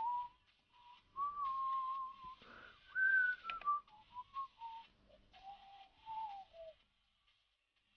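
A person whistling a meandering tune in single notes that step and slide up and down, the last one gliding downward before it stops near the end. A couple of sharp clicks come about halfway through.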